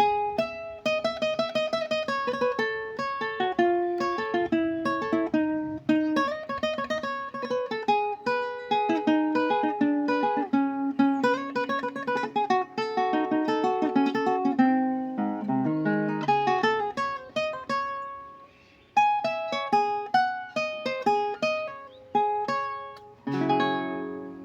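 Requinto, a small high-tuned nylon-string guitar, played solo: a fast picked melody with quick runs of single notes. After a brief pause about three-quarters of the way in, the playing resumes, with strummed chords near the end.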